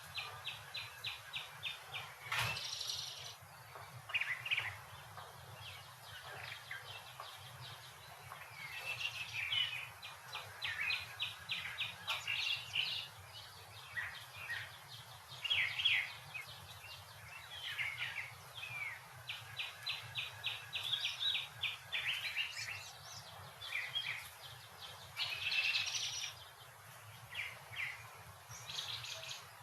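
Songbirds singing and chirping, with several trills of quick evenly repeated notes that recur every ten seconds or so, over a steady low background rumble.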